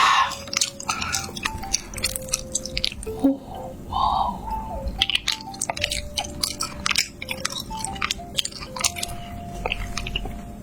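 Close-miked chewing and crunching: a run of crisp bites and mouth sounds, over soft background music.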